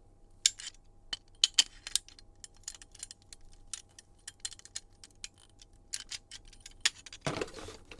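Scattered small clicks and light metallic clinks of door-lock handle-set hardware being handled and fitted together.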